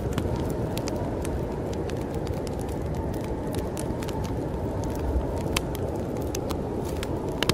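Steady low rush of snowstorm wind, with a wood fire crackling in short, sharp pops scattered throughout.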